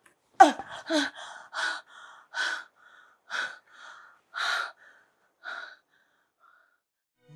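A person's short pained cry, then a series of laboured, gasping breaths about one a second that grow fainter and stop.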